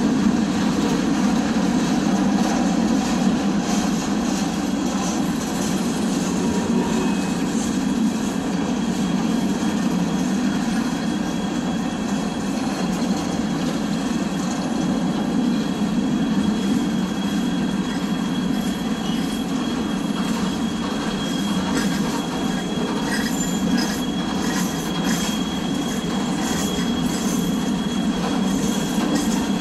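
CSX freight train hopper cars rolling past on steel wheels, a steady, continuous noise of wheels on rail. A thin, high wheel squeal holds steady through the second half.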